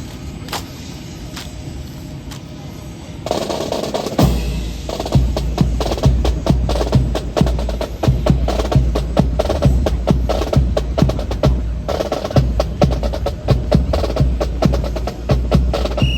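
Marching snare and bass drums break into a fast cadence with rolls about three seconds in, dense with sharp stick strokes over a steady bass-drum beat. Before that there are only a few isolated clacks.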